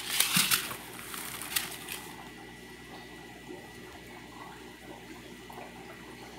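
Plastic food packets crinkling as they are handled, for about the first two seconds. Then steady running water from the aquarium.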